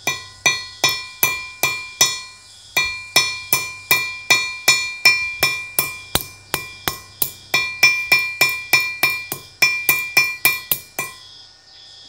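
Ball-peen hammer lightly tapping a rivet against a steel block, peening the rivet head so it flares out and grips the metal belt buckle. A steady run of ringing metallic taps, about three a second, with a short pause about two seconds in; the tapping stops about eleven seconds in.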